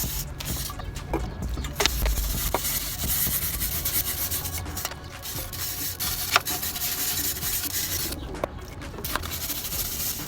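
Wire grill brush scrubbing loose rust out of the grooves of a scooter's exhaust pipe, a scratchy rubbing in runs of back-and-forth strokes with a few short breaks.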